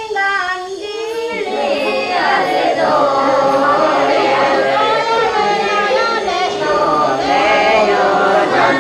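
Background music: a choir of several voices singing together, swelling over the first couple of seconds.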